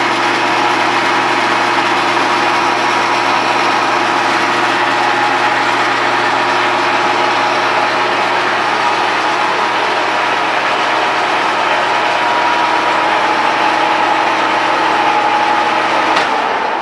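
Jet geared-head bench lathe running under power, a steady machine drone with a constant gear whine. About a second before the end the motor is switched off and the sound begins to wind down.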